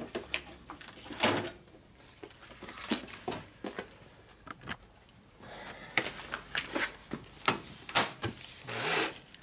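Small engine parts being picked up and set down on a steel workbench: scattered light clicks and knocks, a few sharper ones about six to eight seconds in.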